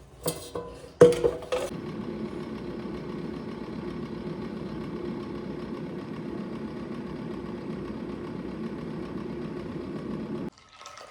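A couple of clicks and knocks, then a small motor or appliance runs with a steady hum for about nine seconds and cuts off suddenly.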